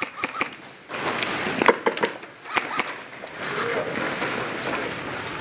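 An airsoft player moving on the field: rough scraping and rustling of gear and footsteps, with a string of sharp clicks and knocks scattered through it.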